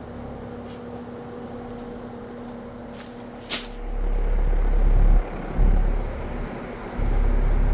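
Happy Home window box fan running steadily, its motor humming under the rush of air, as it warms up after a cold start. Two sharp clicks come about three seconds in, then loud surges of deep low rumble.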